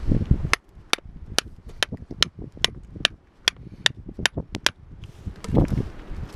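A pointed metal hand tool jabbed again and again into soft beach shale, chipping a trench around a fossil: about a dozen sharp clicks at roughly two to three a second. Near the end the clicks stop and loose shale fragments rustle and scrape as they are moved by hand.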